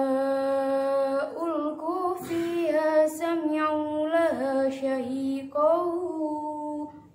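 A young woman's solo voice chanting Qur'anic recitation (tartil) in Arabic, unaccompanied. It opens on one long held note, then moves through wavering, ornamented phrases with a brief pause for breath before the final phrase.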